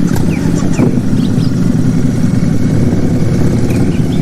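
Steady engine-like drone, as of an idling motor, with short high chirps scattered over it.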